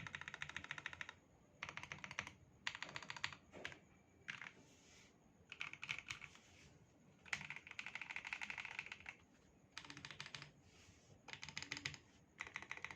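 Typing on an Akko PC75B Plus mechanical keyboard with pre-lubed Akko CS Silver linear switches. It comes as rapid runs of keystrokes, each about a second long, with short pauses between them.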